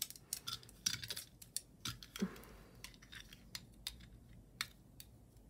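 Faint, irregular small metal clicks and taps from scissors working at a small metal locket, trying to pry its tight clasp open.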